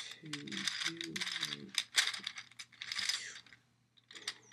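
Plastic gears of a Gear Ball twisty puzzle clicking and clattering rapidly as it is turned by hand. The clicks pause briefly near the end, then start again.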